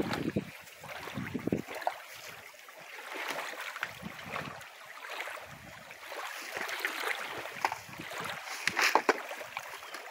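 Small waves lapping and splashing at a lake's edge, uneven with scattered little splashes, with some wind buffeting the microphone.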